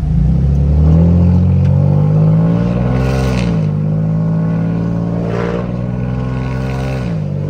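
Ford F-150's 3.7-litre V6 with cat-back straight pipes and no mufflers, heard from inside the cab under hard acceleration. The exhaust note climbs in pitch, drops at an upshift about three seconds in, climbs again and drops at a second upshift near the end.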